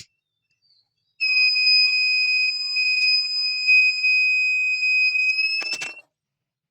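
Buzzer of a homemade smoke and gas-leakage detector sounding its alarm. A single steady high-pitched tone starts about a second in, edges up in pitch near the end and cuts off with a short crackle.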